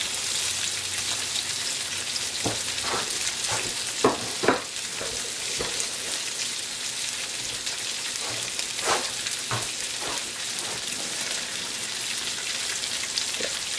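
Head-on prawns frying in olive oil with chopped garlic in a stainless steel skillet: a steady sizzle with a few sharp clicks scattered through it, the loudest about four seconds in.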